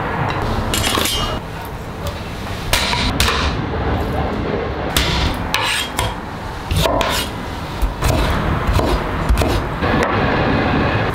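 Kitchen cleaver chopping raw peeled shrimp on a wooden cutting board, a run of irregular heavy knocks of the blade on the wood.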